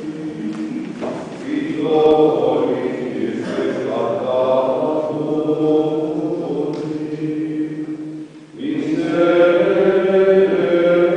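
A choir singing a slow liturgical chant, with sustained sung notes and a short break about eight seconds in before the voices come back in, louder.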